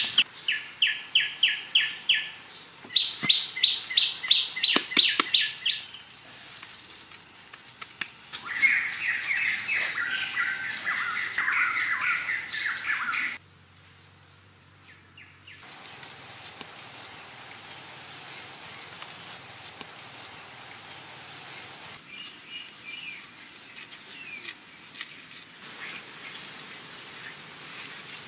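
Forest birds calling in fast series of repeated chirps, about five a second, then a warbling song, over a steady high-pitched insect buzz. The background breaks off and changes abruptly a few times.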